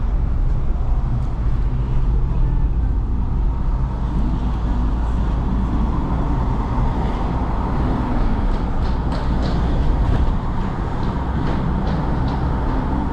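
A Mahindra SUV's engine and road noise, heard from inside the cabin while driving at a steady pace.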